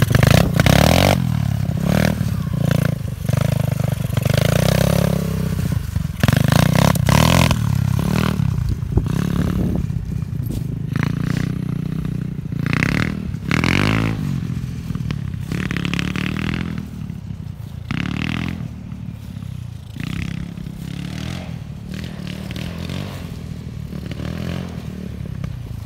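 Tao Tao DB17 125cc single-cylinder four-stroke pit bike running through an aftermarket muffler, revving as it pulls away and then rising and falling with the throttle. It grows fainter as the bike rides off.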